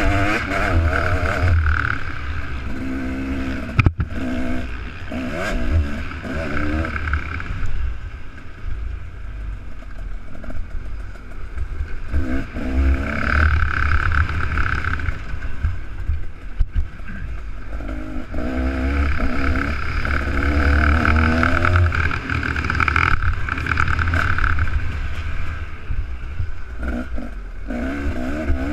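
Two-stroke motocross bike engine revving hard and dropping off again and again as the rider shifts and rolls on the throttle, with a low rumble throughout and a sharp knock about four seconds in.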